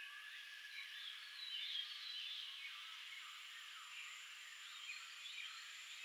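Faint chorus of birds singing and chirping in rain forest, many short rising and falling calls overlapping. A thin, steady high tone comes in about halfway through.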